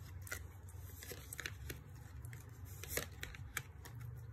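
Tarot cards being handled: drawn off the deck and laid down on a cloth, making a scattered series of soft paper snaps and taps.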